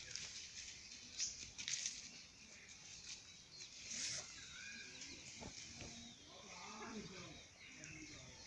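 Faint, scattered short chirps of small birds, a few brief high notes spread through the quiet, with some fainter low calls about two-thirds of the way in.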